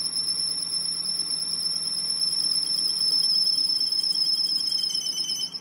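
Metal lathe cutting a spinning metal workpiece, the tool giving off a high, steady whine with a slight regular flutter; a lower tone joins about five seconds in.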